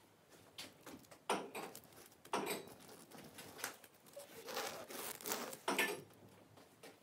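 Short rustling noises, about half a dozen, spaced irregularly, with the longest cluster a little past the middle.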